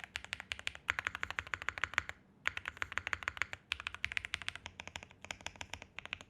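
Typing on a JRIS65 R2 65% custom mechanical keyboard with relubed Gateron Quinn tactile switches, WS PBT keycaps, a POM plate and full foam: quick runs of keystrokes, broken by short pauses.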